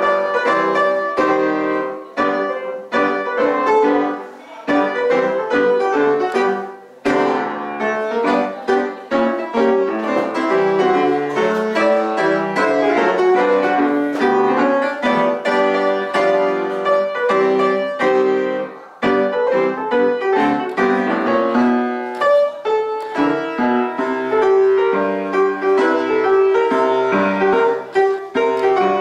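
Piano playing continuously, many notes and chords struck one after another, picked up by a camera's built-in microphone.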